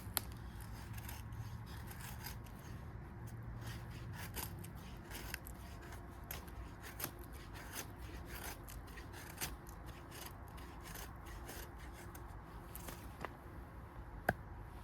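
Steel bushcraft knife blade shaving curls down a wooden stick to make a feather stick: repeated short scraping strokes about a second apart, with a sharp click just after the start and another near the end.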